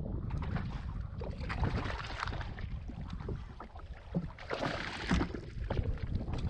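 Water sloshing and splashing around a kayak, in irregular surges, over a steady low rumble of wind on the microphone, with scattered light clicks and knocks.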